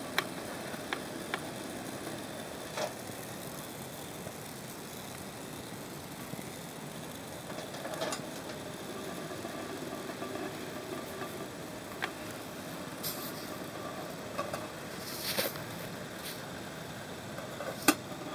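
Steady rushing of a liter of water at a rolling boil in a lidded aluminium pot on a soda-can groove stove, with scattered light clicks. The sharpest click comes near the end, as the pot lid is handled.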